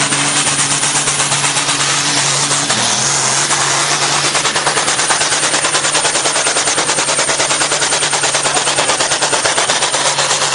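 Diesel engine of a blue pulling tractor at full throttle under load as it drags the weight sled: a loud, rapid, even pulsing of exhaust beats, like machine-gun fire, over a steady drone that drops a little in pitch about three seconds in.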